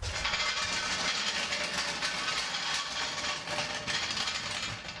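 A jack being set and worked under the car's front suspension to push it up: a steady metallic rattling with many fine clicks.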